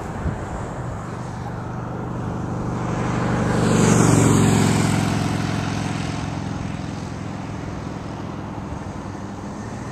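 Airliner passing low overhead on landing approach: its engine noise swells to a peak about four seconds in, then slowly fades.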